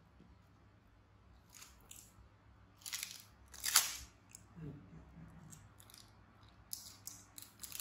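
Small plastic container and its clear plastic wrapping being handled, giving scattered crinkles and crackles, the loudest about four seconds in. A quick run of small clicks follows near the end.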